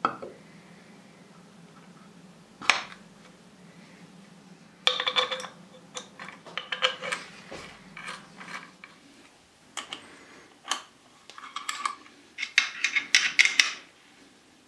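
Metal clinks and rattles of steel clamping studs, nuts and washers handled and fitted, and a spanner tightening them, as a phenolic template plate is clamped down on a rotary table. Single sharp clicks, with two busier bursts of clinking, about five seconds in and again near the end.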